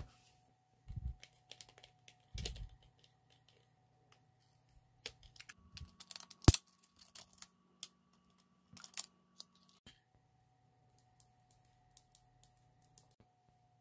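Fingers handling a Flortte makeup pen and its clear plastic case: scattered light plastic clicks and taps with a couple of soft bumps, and one sharp snap about halfway through.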